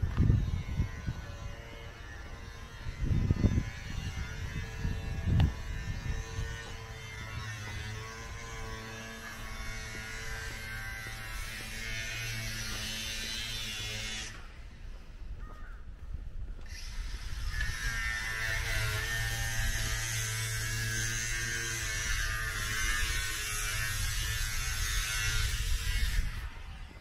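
A steady mechanical hum made of several evenly spaced tones, with a few low thumps in the first few seconds.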